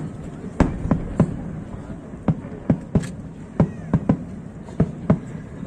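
Fireworks bursting: about a dozen sharp bangs at irregular intervals, a few of them close together.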